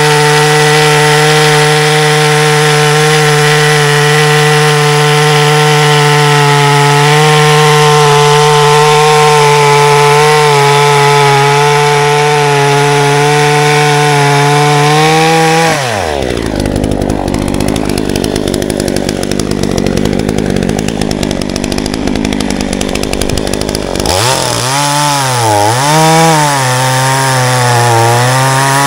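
Hyundai two-stroke petrol chainsaw running at high revs, cutting wood, for about sixteen seconds. It then drops to idle for about eight seconds, is blipped up and down a few times, and settles back to steady high revs.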